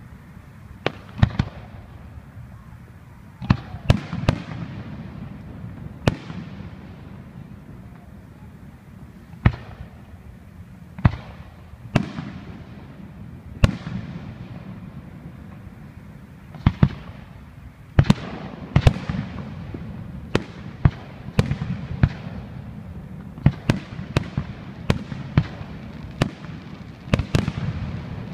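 Fireworks display: aerial shells bursting one after another at an irregular pace, sharp bangs, some in quick pairs and clusters, each followed by a rolling echo, over a continuous low rumble.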